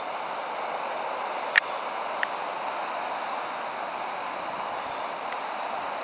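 Debris flow of mud and rock surging down a creek channel, a steady rushing noise, with a sharp click about a second and a half in and a smaller one just after.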